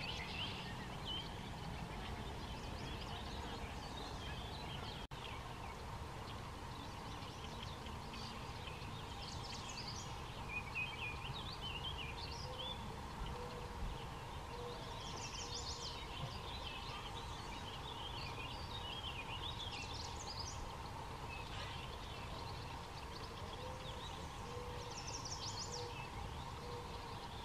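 Several songbirds calling with short chirps and trills, over a low steady outdoor rumble.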